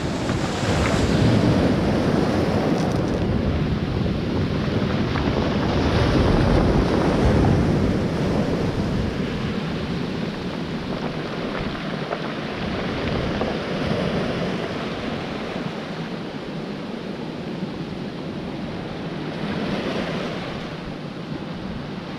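Sea surf breaking and washing over a pebble beach in a big swell, with wind buffeting the microphone; the wash swells louder a couple of times in the first half.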